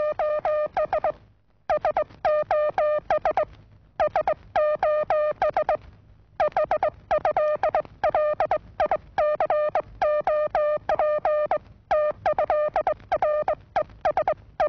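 Stylised typing sound for a typewriter typing out titles: rapid runs of short, identical beeping notes, about nine a second, in runs of one to two seconds broken by brief pauses.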